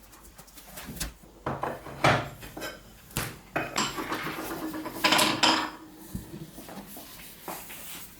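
A series of irregular knocks, clicks and clinks of hard objects being handled, loudest in a rattling cluster a little past the middle.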